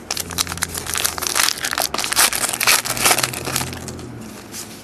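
Plastic packaging crinkling and crackling as trading cards are handled, in a dense run of crackles that thins out near the end.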